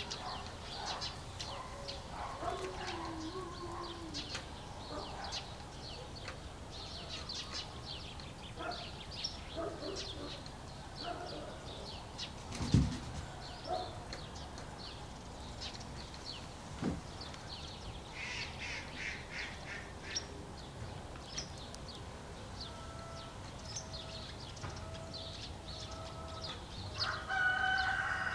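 Farmyard morning ambience: small birds chirp throughout and hens cluck, with a rooster starting to crow near the end. One sharp knock sounds about halfway through.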